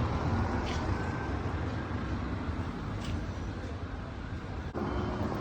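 Town street ambience: road traffic running steadily with a low rumble.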